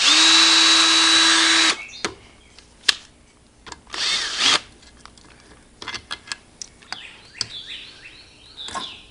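Cordless drill with a socket spinning out the bolts of an outboard's water pump housing. It makes one steady motor whine for almost two seconds and a second short run about four seconds in, followed by scattered light clicks.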